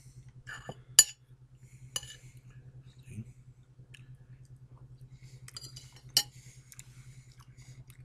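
Metal spoon clinking and scraping against a ceramic plate while cutting into a barbecue rib patty sandwich, with sharp clinks about a second in, at two seconds, and a louder one just after six seconds. A steady low hum runs underneath.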